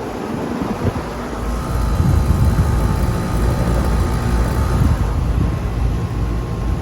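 2008 Rheem Classic 2-ton air conditioner's outdoor condensing unit running, a steady hum and fan rush, with uneven low rumbling from wind on the microphone.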